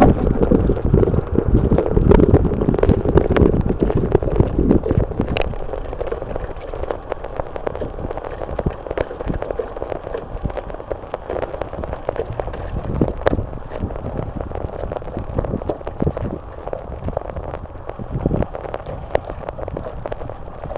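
Wind buffeting the microphone aboard a small sailboat, with scattered sharp knocks. It is loudest for the first five seconds, then eases.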